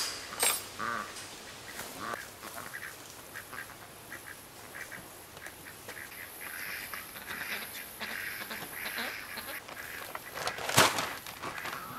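Pekin ducks quacking repeatedly, with one loud sharp knock near the end.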